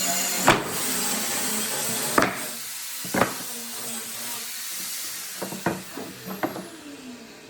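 A steady hiss with a thin high whistle in it, slowly fading, broken by about six sharp knocks.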